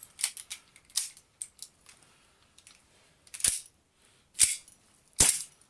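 WE Colt 1911A1 gas-blowback airsoft pistol firing three shots about a second apart, each a sharp crack as the metal slide cycles. Lighter clicks of handling come first.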